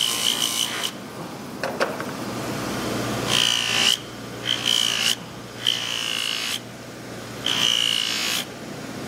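Bench buffer's motor running with a steady hum while a steel knife blade is pressed against the spinning buffing wheel in about five short passes, each a rubbing whir lasting under a second. This is the final buffing that puts a gleam on the blade.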